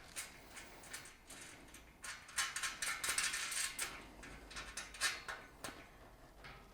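Small metal clicks and clinks of a washer and nut being handled and fitted onto a steel bolt by hand, with a short rustling scrape in the middle.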